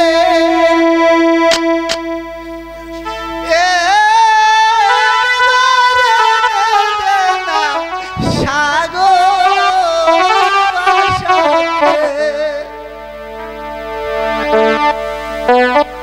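Live jatra music: an electronic keyboard plays a bending, ornamented lead melody over held chords. There is a single dull thump about eight seconds in.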